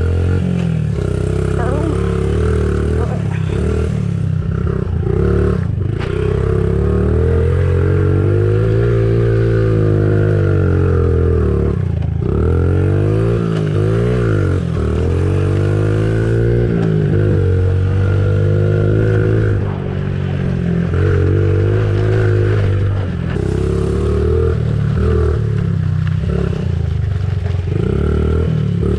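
Pit bike engine heard close up from onboard as it is ridden, the revs climbing and falling again and again with the throttle, with a brief drop about twelve seconds in.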